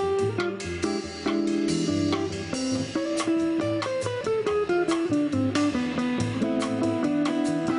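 Live jazz trio playing: a hollow-body archtop guitar picks a melody over plucked upright double bass and a drum kit with cymbal strokes. About halfway through, the guitar line steps down through a run of notes.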